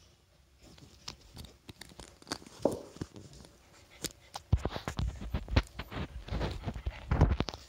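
Puppy playing with a rope toy on a wooden floor: scattered clicks and scrapes, then busy scuffling with thumps and knocks in the second half as it shakes and tugs the toy.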